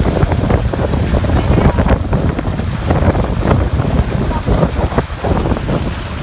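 Water splashing irregularly as fish thrash in a net and are scooped out with a long-handled dip net, with wind on the microphone.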